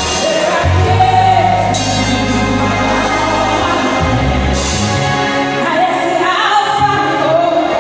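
A woman singing a gospel song into a microphone over backing music, with long held bass notes that change pitch a few times beneath her melody.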